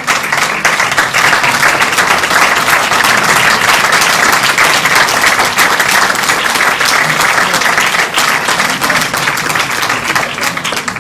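Audience applause, a dense steady clapping that dies down near the end.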